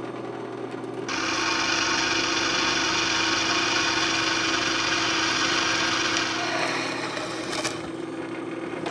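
Jet drill press running, its twist drill bit cutting into steel plate: a steady motor hum, with a loud hissing cutting noise as the bit bites into the metal from about a second in, easing off after about six seconds.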